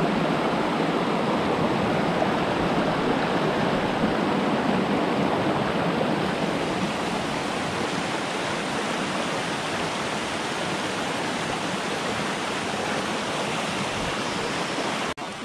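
Small rocky forest stream rushing steadily over cascades and riffles, with a momentary break in the sound near the end.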